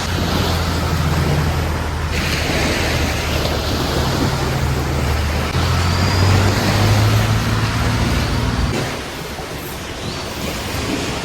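Ocean waves washing in on a beach, with wind buffeting the microphone, under a low steady drone that changes pitch in a few steps and cuts off about three-quarters of the way through.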